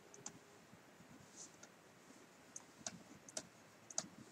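Near silence broken by a few faint, sharp clicks of a stylus tapping on a tablet screen while handwriting; the strongest comes about four seconds in.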